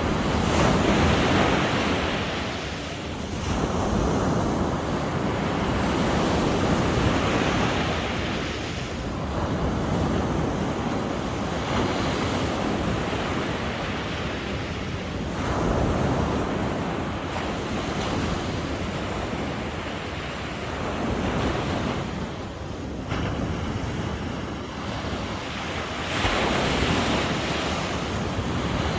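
Sea waves breaking and washing on the shore, the surf swelling and falling back in repeated surges a few seconds apart.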